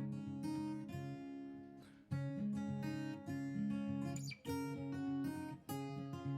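Acoustic guitar music: strummed chords changing every half second or so in a steady rhythm.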